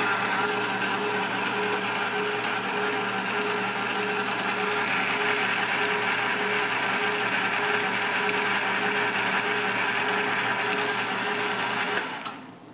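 Taig milling head motor and spindle running an end mill through a power-fed facing cut across the top of a metal block, with the Atlas horizontal mill and its power feed running too: a steady machine whir with cutting noise. Near the end it stops abruptly with a couple of clicks as the pass finishes.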